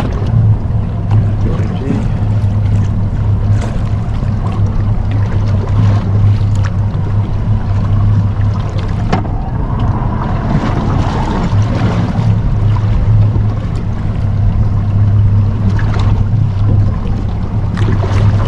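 Steady low hum of a boat's motor running, with wind and sea noise around it.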